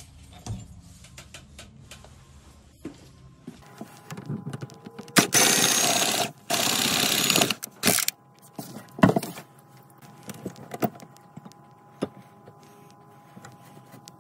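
Cordless power tool cutting drywall in two bursts of about a second each, with knocks and clicks of handling and loose board around them.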